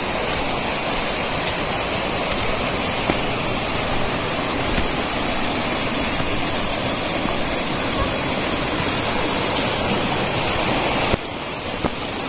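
Water pouring down a mini waterfall at a spring, a steady rushing. It drops suddenly to a slightly lower level about eleven seconds in.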